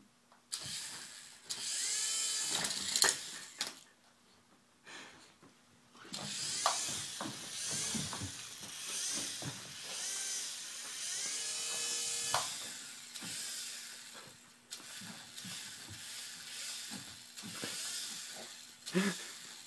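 Toy remote-control helicopter's small electric rotor motors whining in bursts, the pitch rising and falling as the throttle changes. Its spinning blades clatter against the carpet while the helicopter lies on its side.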